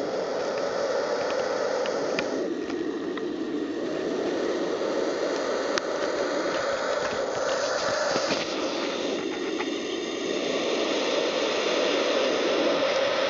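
Black vulture chicks hissing, a steady raspy hiss that eases briefly twice, a few seconds in and again about two-thirds of the way through.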